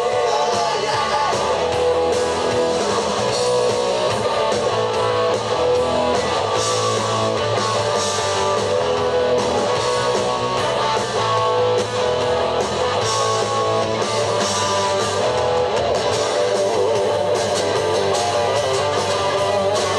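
Live rock band playing a song, with electric guitars strummed prominently over bass and drums.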